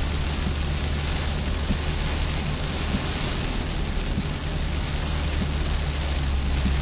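Rain pattering on a moving car, heard through the dashcam's microphone inside the cabin as a steady hiss over a low, even drone of engine and road noise.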